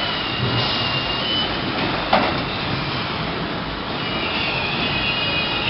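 Steady machinery din of a refrigerator assembly line with roller conveyors running, with a high squealing whine at the start and again near the end, and a single sharp knock about two seconds in.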